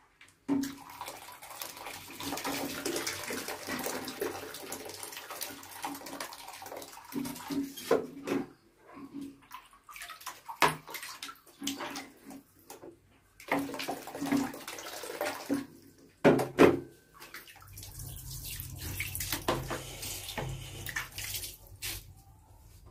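Water poured from an electric kettle into a plastic basin, then splashing and trickling as hands wash a wet baby monkey, with a few sharp knocks in between.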